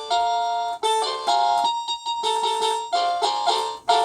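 Big Fun BF-420 toy electronic keyboard playing a series of block chords. Each chord is struck and held for under a second. These are the chord inversions on which the keyboard's programming glitch adds an extra phantom note that should not be there.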